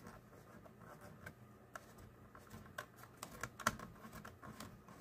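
Light, scattered clicks and taps from hands handling and fitting parts of a plastic computer-case frame, with a brief cluster of sharper clicks about three and a half seconds in.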